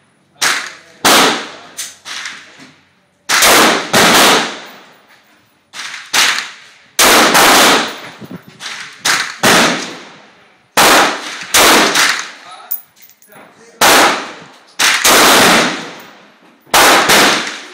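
SIG 556 rifle fired in a steady series of single shots, irregularly spaced about half a second to a second apart, each sharp report trailing off in a short echo.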